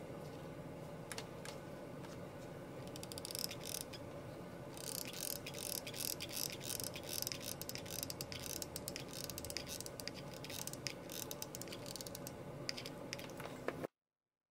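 Hot glue gun's trigger mechanism clicking and ratcheting over and over as glue is squeezed out, mixed with handling of the craft piece. The sound cuts off suddenly near the end.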